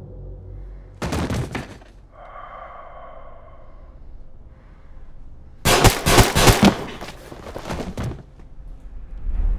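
Gunshots from a handgun: a quick run of shots over about two and a half seconds, after a shorter burst of sharp cracks about a second in.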